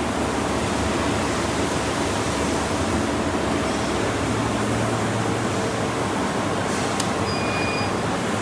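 SuperbMelt SPB-2TB5 gold melting furnace running, a steady rushing hum from its cooling and power unit. About seven seconds in there is a click and a short electronic beep.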